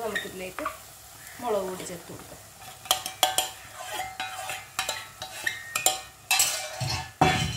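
A steel spoon stirring and scraping sautéing shallots, ginger, garlic and curry leaves in hot oil in a black cooking pot, with a light sizzle. Many sharp clicks of the spoon against the pot from about three seconds in, and a few louder knocks near the end.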